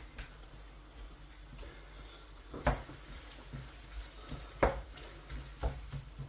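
A utensil knocking against a wok as vegetables are stirred in: three sharp knocks in the second half, the middle one the loudest, with lighter clicks between.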